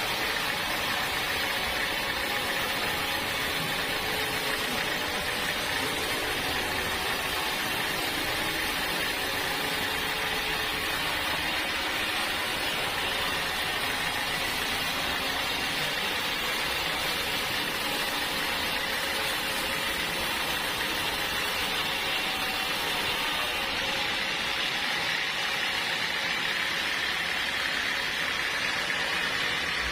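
Sawmill saw running steadily through an acacia log: a continuous hissing, whining cut over the low hum of the mill's motor.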